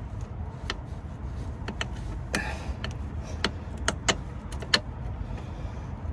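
Irregular sharp metallic clicks and knocks of hand tools on a bolt while a drive shaft is refitted, with a short scrape about two and a half seconds in, over a low steady rumble.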